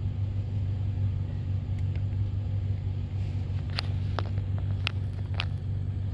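Steady low rumble of an idling car, with a few faint clicks in the second half.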